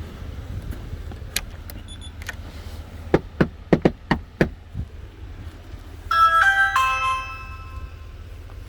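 Knocking on a front door, about six quick raps, then an electronic doorbell chime plays a short stepped melody about six seconds in, starting over near the end.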